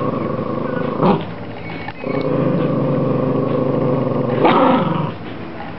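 A small black-and-tan dog growls steadily while guarding a chew bone, with a pause of about a second. Louder snarling flare-ups come about a second in and again near the end as a hand reaches toward the bone. This is resource guarding.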